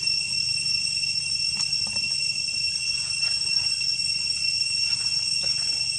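Steady high-pitched insect drone that holds one even tone throughout, over a low steady rumble, with a few faint clicks.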